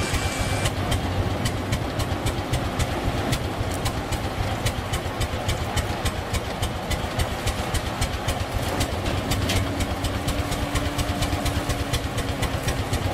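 A model oilfield pumpjack running steadily, its drive giving a low engine-like hum with fast, regular ticking.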